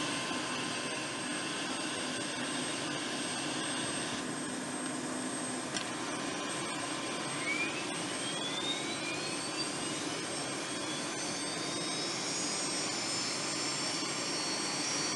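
Turbine engines of a Sikorsky S-70i Black Hawk helicopter running with a steady rushing noise and thin fixed whistles. About seven seconds in, a high whine rises and then holds steady, as the turbines spool up.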